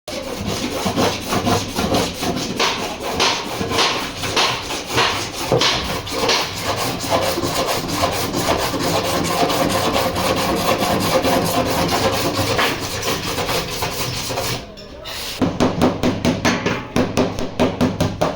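Rapid back-and-forth abrasive rubbing strokes on car bodywork, as in filing or sanding during body repair. About fifteen seconds in it stops briefly, then gives way to regular knocks about three a second.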